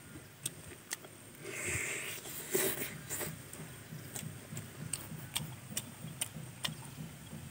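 Close-miked eating of fried chicken: irregular wet mouth clicks and chewing sounds, with a brief crackling rustle about two seconds in as the crisp chicken is pulled apart by hand.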